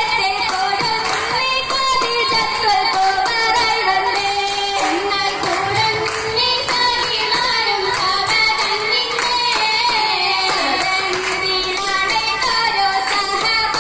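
Girls singing a Mappila oppana song together, with rhythmic hand clapping keeping the beat.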